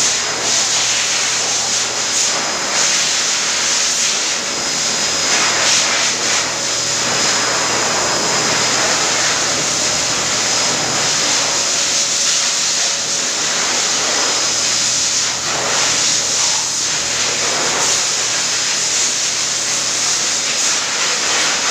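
Steady, loud rushing air noise with a faint high whine and a low hum, as from a running electric blower.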